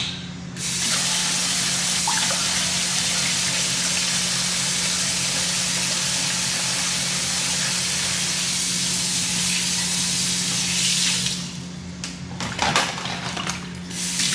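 Kitchen sink faucet running steadily while hands are washed under it, turned off about eleven seconds in. A few seconds of wet handling and clatter follow, with a short run of water again near the end.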